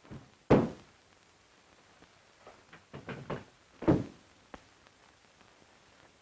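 A series of knocks and thumps: a loud one about half a second in, a quick cluster of smaller knocks around three seconds, another loud thump just before four seconds, then a light click.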